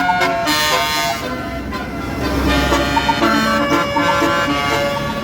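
Tour bus's roof-mounted Basuri multi-tone musical air horn playing a tune of held notes that change in pitch, several tones sounding together, over the low rumble of the bus engine.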